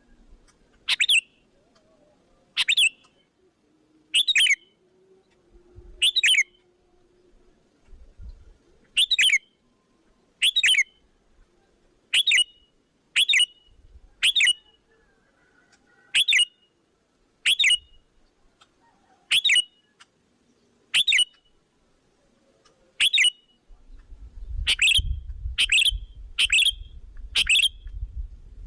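Sooty-headed bulbul lure call: short sharp calls repeated every one to two seconds, coming faster near the end, used to draw wild bulbuls in. A low rumble joins in the last few seconds.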